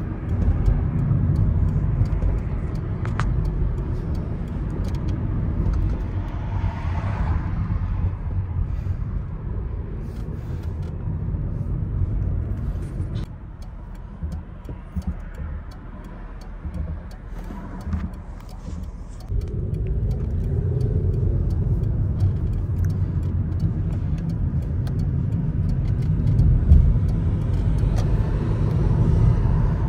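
A car driving, with a steady low rumble of engine and road noise. It drops quieter for several seconds about halfway through, then comes back up.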